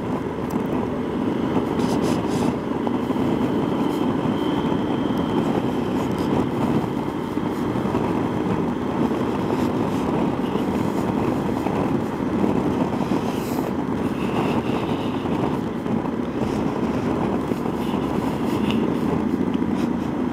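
Yamaha XT1200Z Super Tenere's parallel-twin engine running steadily at road speed under an even rush of wind noise, heard through a microphone inside the rider's helmet.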